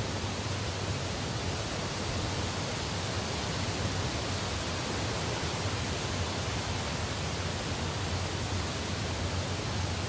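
Small forest stream running over rocks: a steady, unbroken rush of water with a low rumble beneath.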